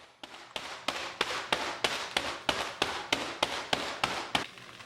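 Rolling pin pounding and crushing Oreo cookies: a rapid, even run of sharp knocks, about four a second, that stops shortly before the end.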